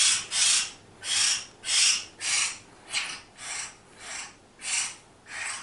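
A baby hill myna making harsh, raspy hissing calls, about two a second: the chick's noisy begging that keeps the sleepers awake.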